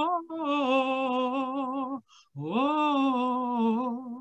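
A solo voice singing a Christmas hymn in long held notes with vibrato. The first note ends about two seconds in, and after a short break the voice rises into another long note.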